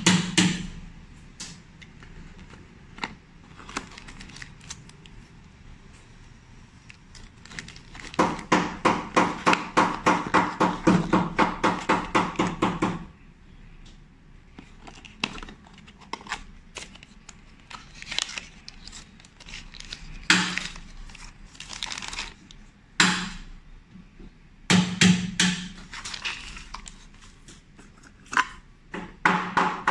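Cardboard packaging and a plastic blister pack being handled, with scattered clicks, taps and crinkles. For about five seconds a third of the way in, and again at the very end, a fast, evenly repeating pitched pattern of about five strokes a second plays, like background music.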